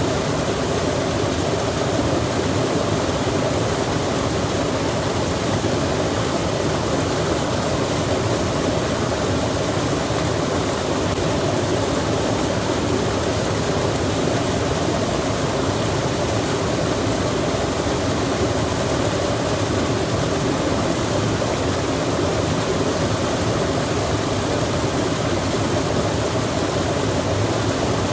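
Steady, unbroken rushing noise of an outdoor mountain-forest ambience, even in level throughout, with no distinct events.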